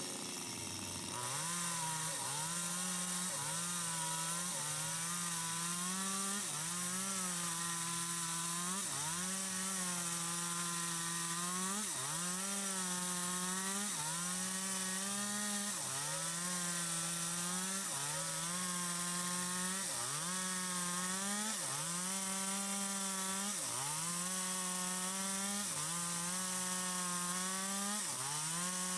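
Stihl MS 250 two-stroke chainsaw with a 25-inch bar running at high revs while cutting wood, its engine pitch dipping under load and recovering about once a second.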